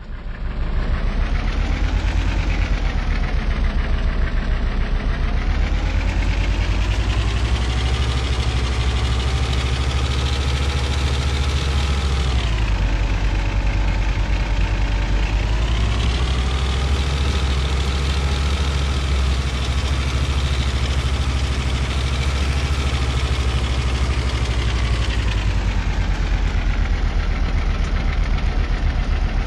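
An engine running steadily at idle with a rapid low pulsing, its pitch drifting slowly up and down and dipping briefly about twelve seconds in.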